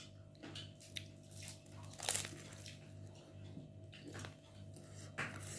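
A person biting and chewing a fried roll: faint, irregular mouth and bite sounds, the clearest about two seconds in, over a steady low hum.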